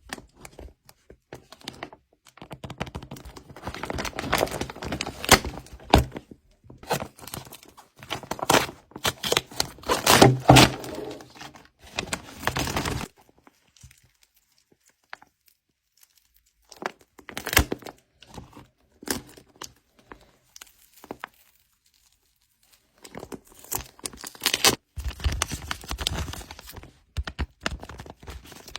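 Paper being handled: crinkling, rustling and tearing in irregular bursts with a few soft thunks, pausing twice for a few seconds.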